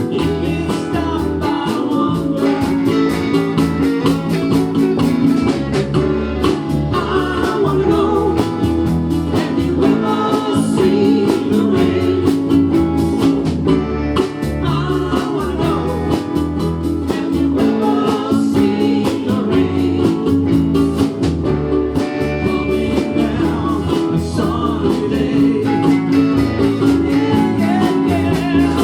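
Ukuleles strummed in a steady rhythm while voices sing along, in a group cover of a rock song.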